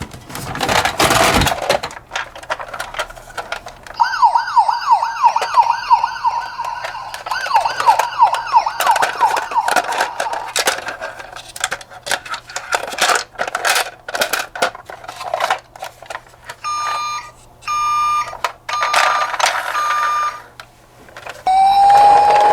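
Toy ambulance's electronic siren sound effect: a quick yelp sweeping up and down a couple of times a second for several seconds, then, after a pause, a steady electronic tone switching on and off. Many sharp clicks and knocks run through it.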